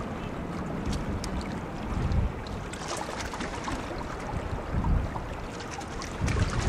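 Wind buffeting the microphone in gusts, strongest about two and five seconds in and again near the end, with small waves lapping and ticking at the water's edge.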